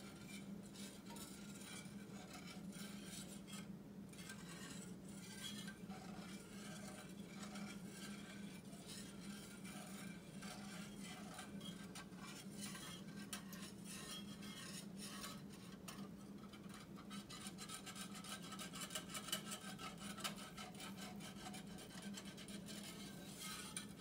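Wire whisk scraping around a cast iron skillet of gravy in quick repeated strokes, busiest near the end, over a low steady hum.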